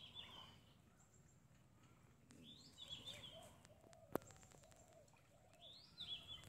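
Faint bird call, a short chirp that rises and then falls, repeated three times about every three seconds. A single sharp click about four seconds in.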